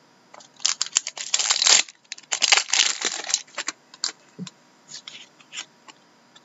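Hockey card packs being opened and handled by hand: the wrappers crinkle and tear in two dense bursts about a second long each, then scattered light flicks and clicks of cards.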